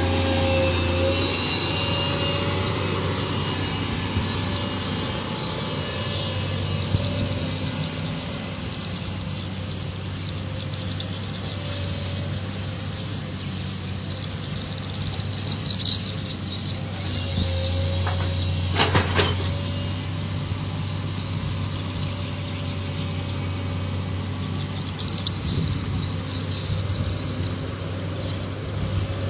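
Heavy diesel machinery running steadily while an excavator is loaded onto a hauling truck, with thin high squeals at times and one short metallic clatter about two-thirds of the way through.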